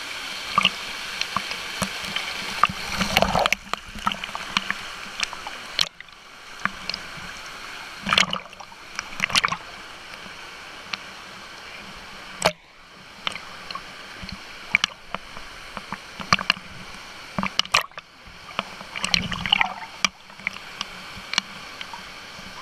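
Water sloshing and splashing against a GoPro's waterproof housing bobbing at the surface of a pool, with many sharp droplet clicks over the steady hiss of a small waterfall. The sound drops and goes dull for a moment several times as the camera dips under.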